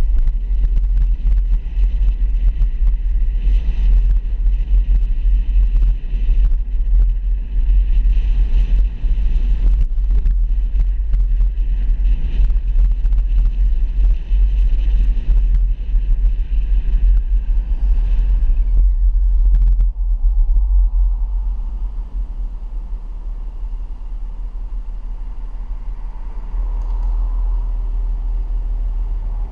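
Road and wind noise from a vehicle driving, a heavy steady rumble. About 20 seconds in it quietens as the vehicle slows to a stop at an intersection, leaving a softer rumble.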